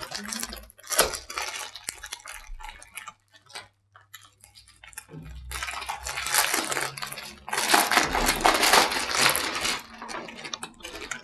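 Plastic and paper rustling and crinkling as laminating film sheets and their plastic wrapping are handled. It comes as scattered rustles at first, then two long, loud stretches of crackling in the second half.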